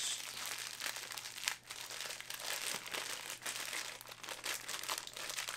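Packing paper around a boxed vinyl figure crinkling and rustling as it is handled, with many small irregular crackles.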